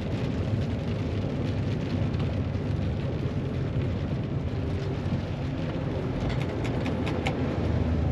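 Truck cab noise while driving: the diesel engine runs steadily under the hiss of tyres on a wet road. A few faint clicks come in quick succession near the end.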